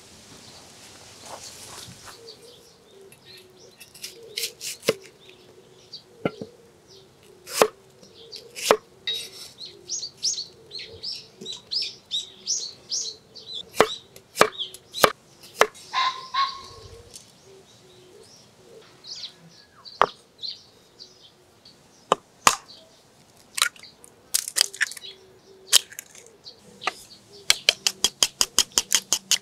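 A cleaver chopping garlic cloves on a wooden cutting board in single, irregular sharp knocks, with birds chirping in the background in the middle. Near the end, wooden chopsticks beat eggs in a wooden bowl in fast, even clicks.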